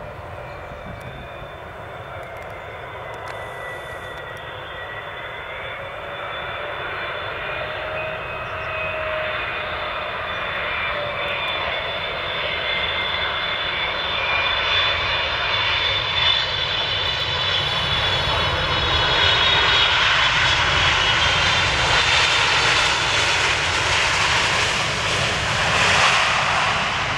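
Boeing 777-300ER's twin GE90 jet engines on a landing: a jet whine with several tones that drift in pitch on final approach, growing steadily louder through touchdown and into the rollout. It is loudest and most hissing in the last several seconds as the airliner rolls past on the runway.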